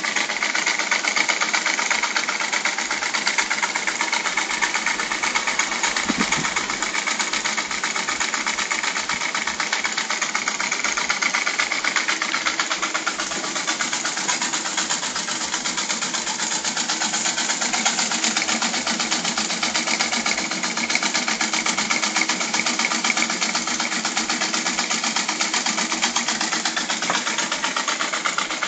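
Small experimental single-acting rotary-valve model steam engine running steadily, its steam exhaust beating in a fast, even chatter over a constant hiss.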